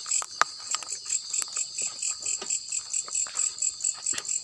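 Insects chirping in a steady high-pitched pulse, about five chirps a second, with a few sharp clicks scattered through.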